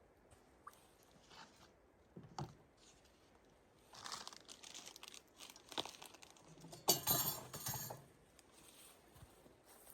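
Irregular crinkling and crunching handling noises, in scattered bursts, loudest about seven seconds in.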